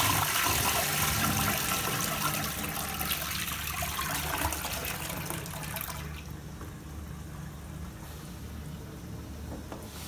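Toto Aquia wall-mounted dual-flush toilet finishing its flush: rushing water in the bowl fades and stops about six seconds in, leaving a quieter hiss of the concealed cistern refilling.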